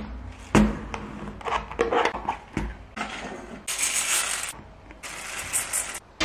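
Plastic food containers knocked and handled on a table, then dry grains poured from a plastic container into a stainless steel bowl, a rattling hiss about three seconds in that lasts over a second.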